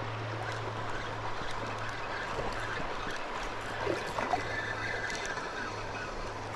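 Steady trickle and rush of river water around a kayak, with a low steady hum.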